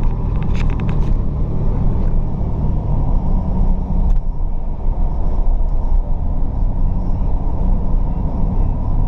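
A motor vehicle's engine running steadily with a low, even drone.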